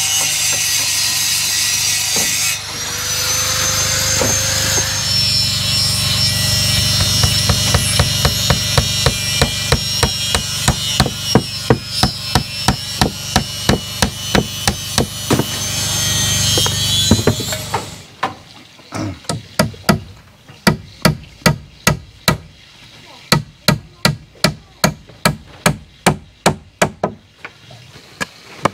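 Hand hammer striking the wooden formwork, a steady run of blows about two a second. For the first two-thirds a loud continuous whining hiss runs underneath. It cuts off abruptly, and the blows carry on in short runs with brief pauses.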